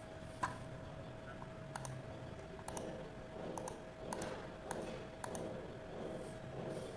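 A scattered series of about seven light, sharp clicks over a faint steady hum, the loudest about half a second in.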